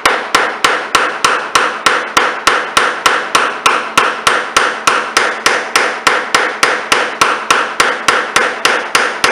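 Steady, light hammer taps, about three to four a second, on a metal drift driving a Stihl BR420 blower's crankshaft down into its main bearing in the crankcase half. Each tap rings briefly.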